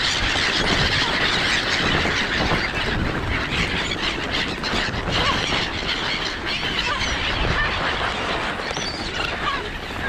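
A large flock of black-headed gulls calling and flapping all at once as they crowd in to feed, a dense, steady mass of many overlapping short cries and wingbeats.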